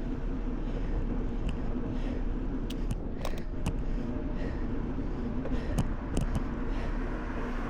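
Steady road and wind rumble from riding a bicycle, with a constant low hum and scattered sharp clicks and rattles from the bike, most of them in two clusters in the middle.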